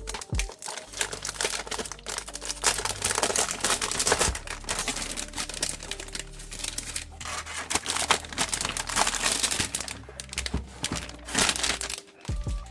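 Packaging crinkling and rustling as it is handled and pulled apart, in irregular crackly stretches with brief tearing.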